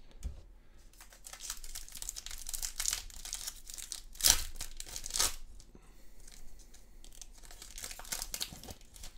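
A sealed AFL Footy Stars trading card pack being torn open by hand: the plastic wrapper crinkles, with two sharp, loud tears about four and five seconds in, then more crinkling near the end.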